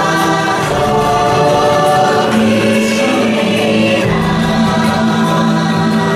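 Choral music: voices sing long held notes over a sustained low note, and the chord changes about two and four seconds in.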